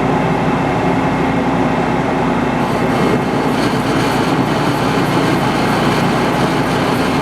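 Metal lathe running steadily while machining the collar of a sawmill mandrel, a constant dense mechanical noise that turns a little brighter from about three seconds in.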